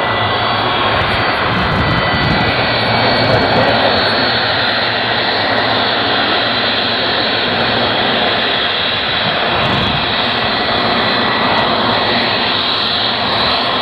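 Boeing 757-300's twin turbofan engines at taxi power: a steady jet rumble and hiss with a thin high whine running through it.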